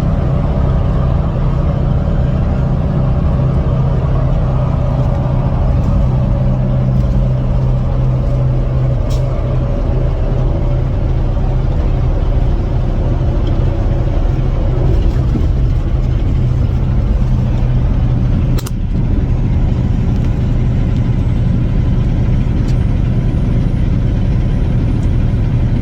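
Engine and road noise inside a moving vehicle's cab: a steady low drone, broken once by a single sharp click about two-thirds of the way through.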